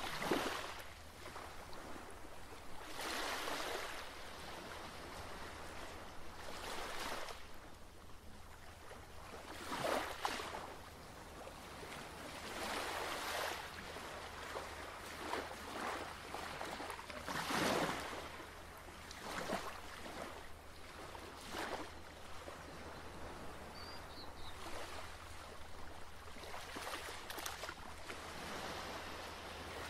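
Ocean waves surging and washing in, one swell of surf every two to four seconds, the strongest about ten and eighteen seconds in, over a steady low hum.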